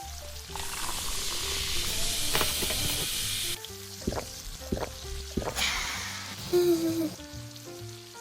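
Meat sizzling on a grill for about three seconds, cutting off suddenly, then a few sharp clicks and a brief second sizzle, over light background music.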